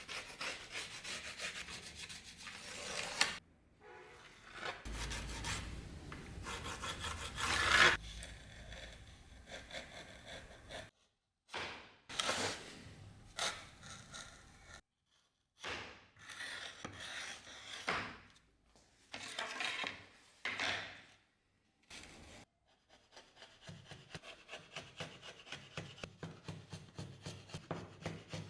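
Hand filing or rasping: a file scraping back and forth over the workpiece in repeated strokes, heard in several short cuts with sudden silent gaps between them. Near the end it settles into a run of quick, even strokes.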